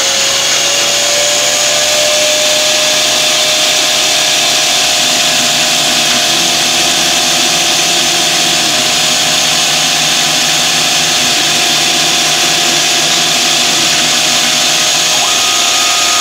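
Converted round-column CNC mill cutting dry with its end mill, taking 40 thousandths a pass at 20 inches a minute: a loud, steady machining noise with a steady spindle whine that rises a little in pitch about half a second in.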